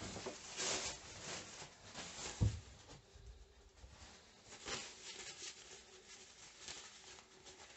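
Water splashing and sloshing in short bursts as a hand pushes a capped plastic bottle-neck capsule about in a shallow bowl of water, with a low thump about two and a half seconds in.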